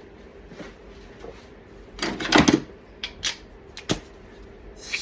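Metal tools clinking and knocking against the cylinder head while a drilled-out broken exhaust bolt is tried for looseness: a short clatter about two seconds in, two sharp knocks, then a louder rattling noise starting near the end.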